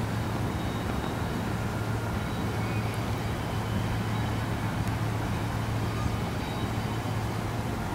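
Diesel engines of CSX freight locomotives pulling an intermodal train across a river bridge, a steady low hum, mixed with a steady wash of highway traffic.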